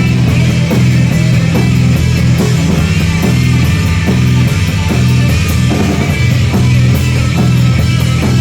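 Live heavy rock band playing an instrumental stretch: a loud, driving bass-heavy riff over steady drums, with no singing.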